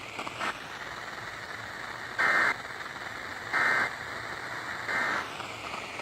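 Emergency Alert System end-of-message signal: three short bursts of screechy SAME digital data tones, about a third of a second each and evenly spaced a little over a second apart, over a steady hiss of radio static. They close the severe thunderstorm warning.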